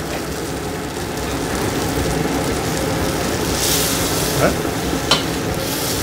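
Beef round sizzling in a stainless steel pan as spooned-in papelón (cane sugar) melts and caramelizes around it, over the steady hum of a kitchen extractor hood. A louder hiss flares a little past halfway, and the spoon clicks sharply twice near the end.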